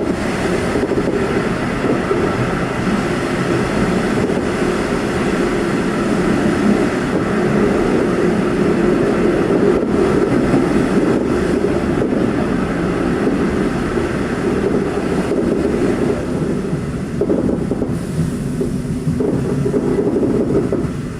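V/Line passenger train running at speed, heard from on board: a steady, loud rumble of wheels on the rails with some clickety-clack.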